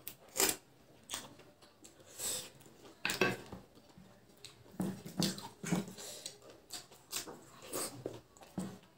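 Close-miked eating with the hands: a dozen or so short wet lip smacks and finger-sucking sounds at irregular intervals, with soft squishes of rice and curry gravy being mixed by hand on a plate.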